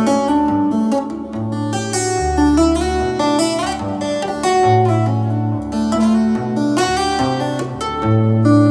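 Solo acoustic guitar playing an instrumental piece that evokes church bells. Held low bass notes change every second or two under an overlapping, ringing melody of plucked notes.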